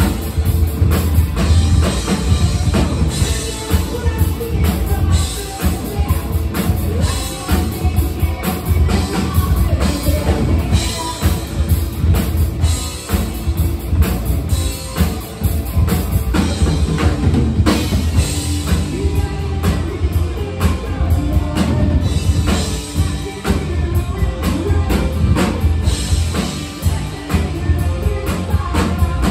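Live rock band playing: electric guitar, bass guitar and drum kit with a steady beat, and a singer's voice over them.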